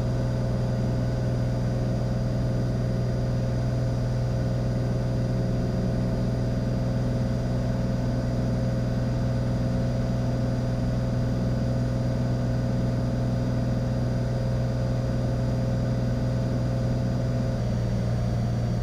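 Cessna 182 Skylane's piston engine and propeller droning steadily in flight, with a slight change in tone near the end.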